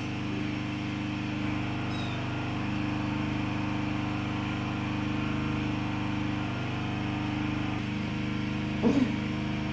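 A steady low machine hum holding several fixed tones without change, like a motor running, with one short sound about nine seconds in.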